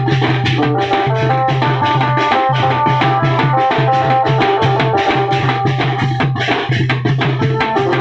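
Koraputia band party music: drums and hand cymbals beating a fast, even rhythm of about four strokes a second under a held electronic keyboard melody and a steady bass, played through horn loudspeakers.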